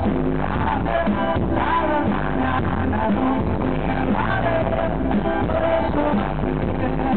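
Live rock band playing: a male lead singer singing into a microphone over electric guitar, bass and drums, heard through the concert's PA.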